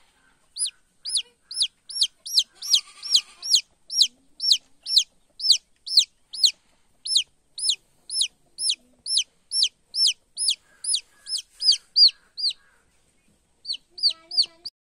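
Newly hatched chick peeping steadily: short, high, falling peeps about two a second, with a brief pause near the end before three more.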